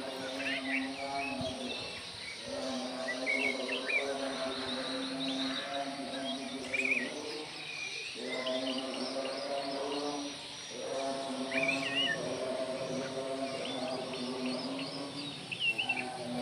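Oriental magpie-robin giving short, twisting whistled chirps every couple of seconds, over a steady droning hum with several overtones that breaks off briefly a few times.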